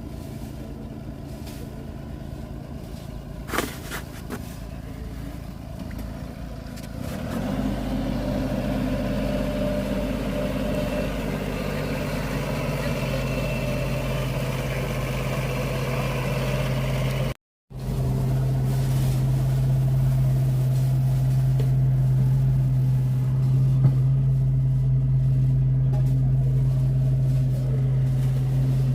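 An engine running steadily with a low hum. It grows louder about seven seconds in, cuts out for a moment past halfway, and then comes back louder.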